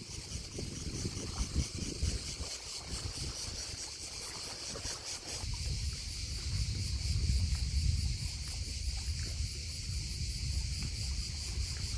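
Crickets chirping in a steady, high, pulsing chorus, with a low rumble underneath that grows louder about halfway through.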